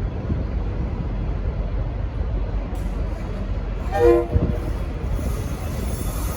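V/Line N class diesel locomotive running with a steady low rumble, giving one short toot on its Leslie RS5T five-chime horn about four seconds in.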